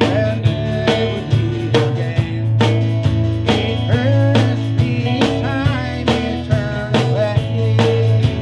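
Live gospel song played by a band: a man sings into a microphone over strummed acoustic guitar, a bass line and a steady drum beat.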